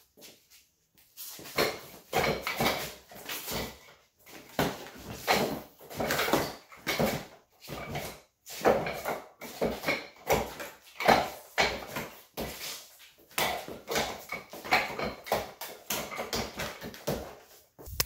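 Quick irregular flurries of hand strikes slapping and thudding on a heavy punching bag, several blows a second with short pauses between combinations.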